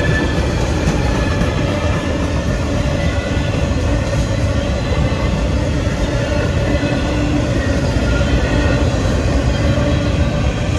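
Freight train boxcars and covered hoppers rolling steadily past: the continuous loud rumble and rattle of steel wheels on rail.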